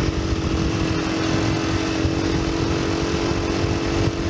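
ATV engine running steadily at a constant speed, with an even tone and no revving.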